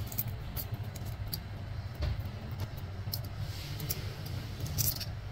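Fingers peeling a boiled quail egg: small crackles and ticks of the thin shell breaking and flaking off, over a steady low rumble of heavy rain.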